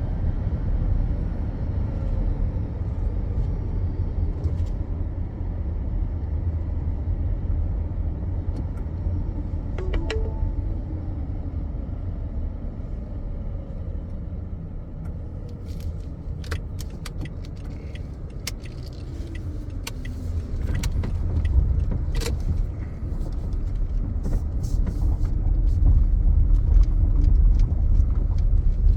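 Steady low rumble of a car in motion, heard from inside, with slowly shifting tones. In the second half come scattered sharp clicks and jingling rattles.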